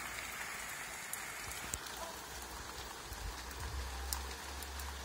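Heavy rain pouring steadily, with scattered drop ticks and a low rumble that comes in about three seconds in.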